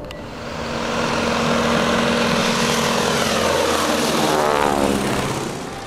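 Crop-dusting biplane flying low overhead. Its propeller engine builds over the first second, then drops steadily in pitch as the plane passes, and fades near the end.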